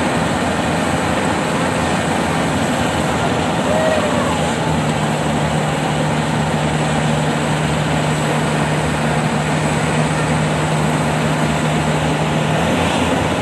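Yanmar AW70V combine harvester running steadily close by, its diesel engine and machinery making a constant loud drone. A steady low hum joins about five seconds in and stops shortly before the end.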